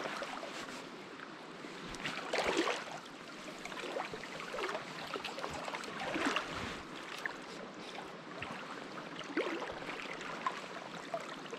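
Legs wading through a shallow stream, the water sloshing and splashing in several irregular surges over the steady rush of the flowing current.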